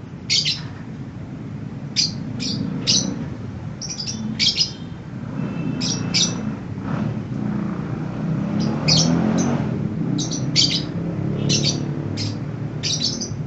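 A young lovebird, about two and a half months old, practising its call: short, high chirps in quick clusters, roughly one cluster a second and irregular. The chirps sit over a steady low rumble in the background.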